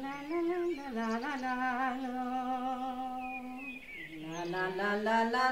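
A solo voice hums a slow melody in the intro music. It holds one long steady note through the middle, then glides upward into the next phrase near the end.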